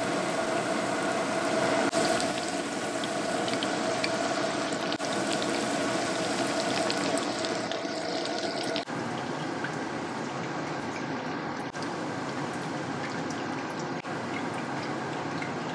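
Marinated pork chops deep-frying in a pan of hot oil at medium heat for their first fry: a steady sizzle, broken by a few abrupt brief dips.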